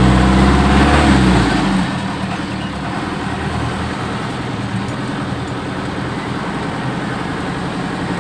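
A six-wheeler mini dump truck's engine running under way, heard from inside the cab with road noise. It is louder for the first two seconds, then settles to a steady, lower note.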